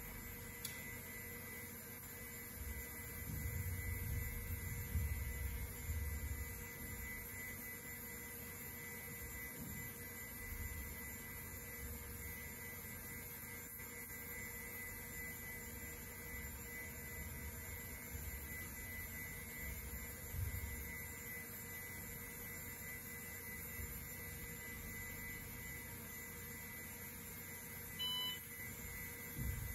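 IBM PC Server 315 booting: a steady hum of its fans and drives with thin steady electronic tones, uneven low rumbles now and then, and one short beep near the end.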